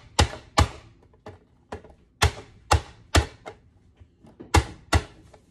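Hinged plastic lid of a manual push-down vegetable chopper banged down hard by hand again and again, about ten sharp bangs, often in pairs, forcing a tomato through the dicing blade grid.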